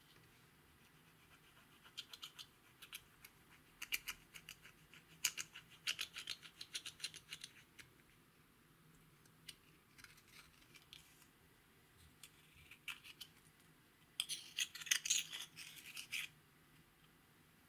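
Thin metal tool scraping and crumbling pressed-powder eyeshadow out of a plastic compact, heard as bursts of quick, gritty scratching, with the densest, loudest burst near the end.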